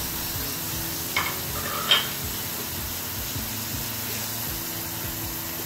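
Minced beef and freshly added diced onions sizzling steadily as they fry in a pan. A wooden spatula scrapes against the pan twice, about one and two seconds in.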